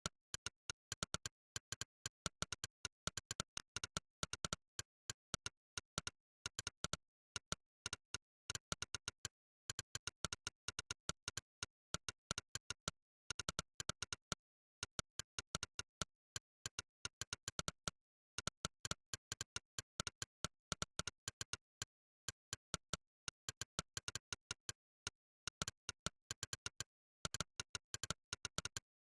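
Monkeytype's synthetic 'click' keystroke sound effect, one short sharp click per key typed. The clicks come in fast, uneven runs of several a second, broken by short pauses every few seconds, with dead silence between them.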